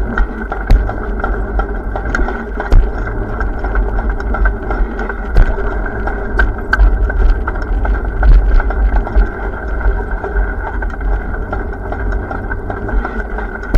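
Steady low rumble and hum of riding a bike, with frequent small clicks and rattles.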